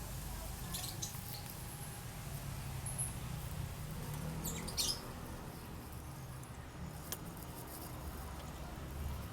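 A few light clicks and scrapes of a motorcycle exhaust DB killer and its lock ring being pressed into the muffler tip, over a steady low rumble. The sharpest scrape comes about halfway through.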